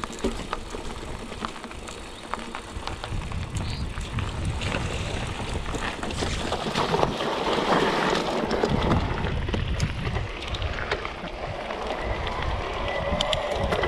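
Mountain bike tyres rolling over a rough dirt and gravel trail with many small clicks and wind buffeting the microphone. It gets louder around the middle, where the bikes splash through a shallow stony stream.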